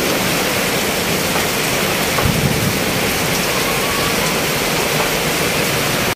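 Heavy rain coming down hard, a steady loud hiss, with runoff streaming off the edge of an awning onto the ground. A brief low thump comes a little after two seconds in.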